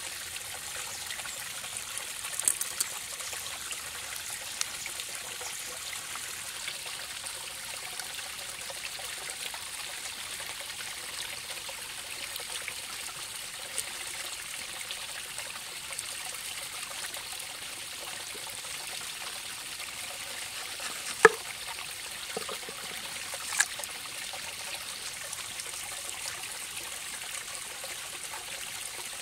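A stream running steadily, with a few sharp clicks from hands at work, the loudest about two-thirds of the way in.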